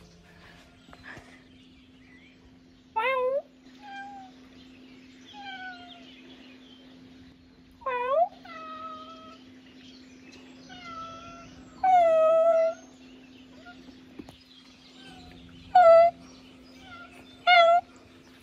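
A cat meowing in an exchange with a person imitating its meows: five loud meows a few seconds apart, the one about twelve seconds in held longest, with softer mews between. A faint steady hum runs underneath.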